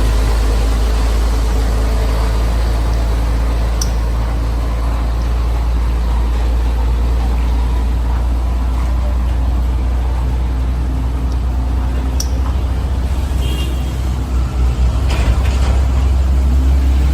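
A heavy truck engine running with a steady low drone, the note wavering briefly near the end, with a couple of sharp clicks over it.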